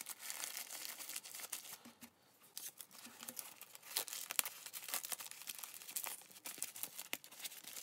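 Masking tape being pulled and wrapped around a crumpled newspaper ball, with the paper crinkling under the hands as it is pressed tight: irregular crackling and rustling with many small sharp snaps.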